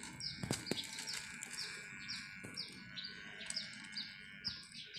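A bird repeating a short, high chirp that drops in pitch, about two to three times a second, over a faint steady high-pitched tone.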